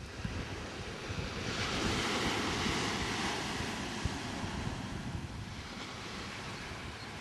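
Ocean surf breaking and washing up a sandy beach, swelling about a second and a half in and easing off a few seconds later, with wind buffeting the microphone.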